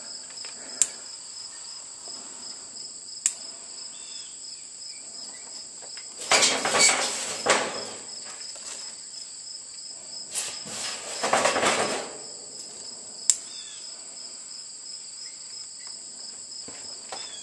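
Insects chirring steadily at a high pitch, joined twice by stretches of rustling and clattering, about six and ten seconds in, as wood kindling is handled and dropped into a metal barrel, with a few sharp clicks between.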